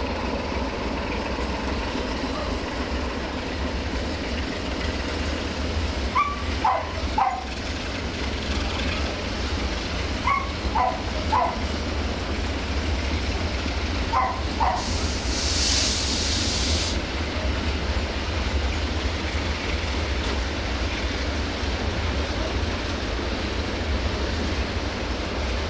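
Freight train of tank wagons rolling past on the rails with a steady rumble. Short sharp barks, likely from a dog, come in small groups several times, and a brief hiss of air sounds about 15 seconds in.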